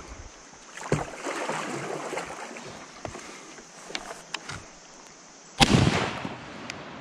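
A single 12-gauge shotgun shot from a Stoeger M3500 semi-automatic, about five and a half seconds in, sharp and loud with a short fading tail. Before it come a few light knocks and clicks.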